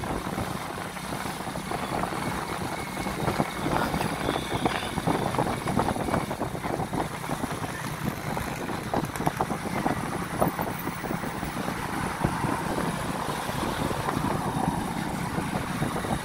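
Car driving along a road, its engine and tyre noise heard from inside the cabin, steady throughout with frequent small crackles and buffets.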